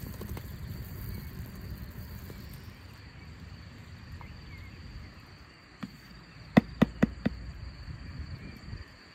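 A metal spoon knocks sharply against the rim of a bowl four times in quick succession, about two-thirds of the way in, as foam skimmed from cooking strawberry jam is shaken off it. Underneath are a low rumble and a steady high insect trill.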